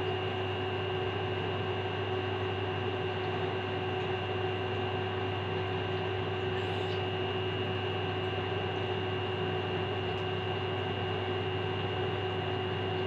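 Electric fan running with a steady hum.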